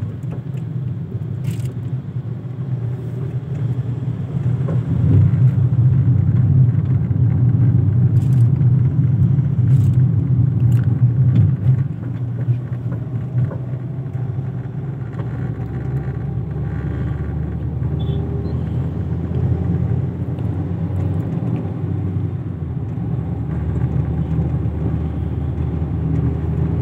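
Car driving: steady low engine and road rumble, louder for several seconds in the first half.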